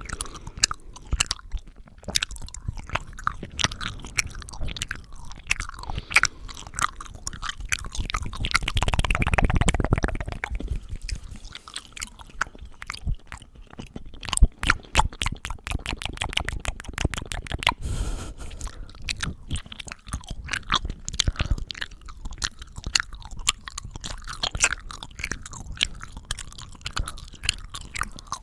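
Close-miked ASMR mouth sounds: wet clicks, smacks and tongue sounds in quick succession. A louder rushing noise swells around nine to ten seconds in, and a run of very rapid clicks comes from about fourteen to eighteen seconds.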